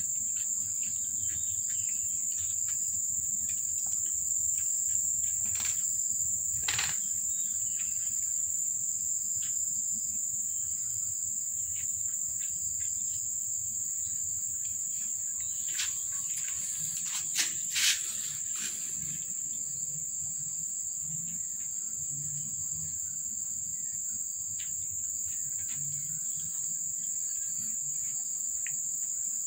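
Crickets chirring steadily in a high, unbroken tone, with faint light ticks from a cat lapping water out of a plastic tub. A few sharper clicks come about two-thirds of the way through.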